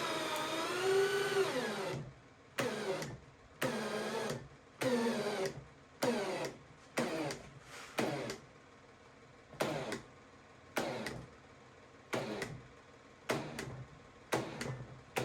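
Craftsman CMCD711 V20 cordless hammer drill driving a lag screw in second gear. The motor's whine sinks in pitch as it bogs down under the load. About two seconds in it starts cutting out and restarting in short bursts, roughly one a second: the drill is barely able to drive the screw and cuts out every time.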